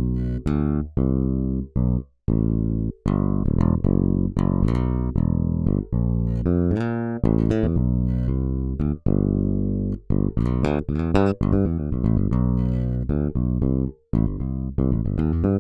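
Toontrack EZbass virtual bass playing a gospel MIDI bass line on its own: plucked bass notes with short gaps between phrases, and a quicker run of notes about two-thirds of the way through.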